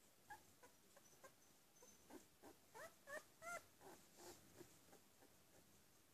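Two-week-old puppy squeaking faintly: a run of short, rising whimpers, about a dozen, loudest just past the middle.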